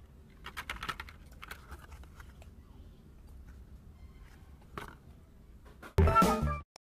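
Faint crackling and clicking from the microphone's faux-leather pouch and packaging being handled. About six seconds in, a short, loud, pitched sound effect plays with the like-button animation.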